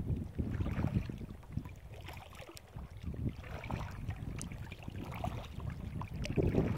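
Wind buffeting the microphone as a low rumble, with small choppy waves lapping and splashing against a kayak's hull. The splashing gets louder near the end.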